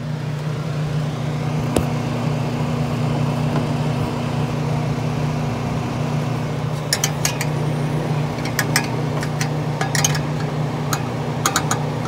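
Steady low hum of the reach-in cooler's fans running, with a few light clicks and taps in the second half.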